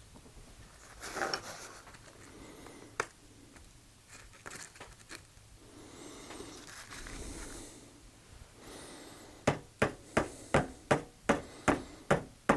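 Light handling clicks and rustle, then near the end a rapid series of sharp knocks, about three a second: a container of freshly mixed polyurethane resin being tapped on the bench to release air bubbles.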